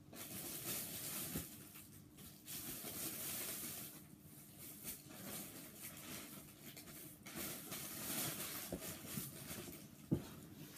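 Plastic squishy packaging rustling and crinkling as it is handled, in several waves, with a sharp tap about ten seconds in.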